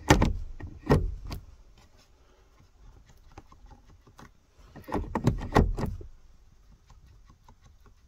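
Clicks and knocks from a Honda Civic Type R FN2's gear lever on a budget short shifter as it is wobbled in its mount. They come in two short bouts, the second about five seconds after the first.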